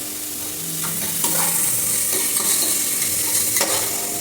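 Onions, green chillies and freshly added tomatoes frying in oil in a pan: a steady sizzle, with a spoon stirring and scraping the pan in several short strokes.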